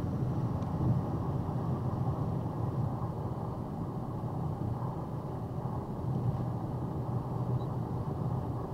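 Steady road and engine rumble heard from inside a car cruising at about 56 mph, with no sudden sounds.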